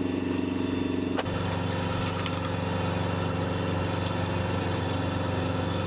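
An engine running steadily with a low, even hum; about a second in there is a click and the hum changes to a lower pitch, then runs on unchanged.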